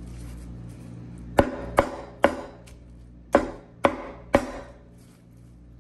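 Meat cleaver chopping smoked pork shoulder on a wooden cutting board: six sharp chops in two quick runs of three, starting about a second and a half in.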